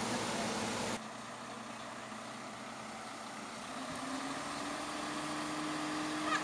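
A mobile crane truck's diesel engine running steadily, its pitch rising slightly about four seconds in as the crane lifts. It follows a second of even hiss.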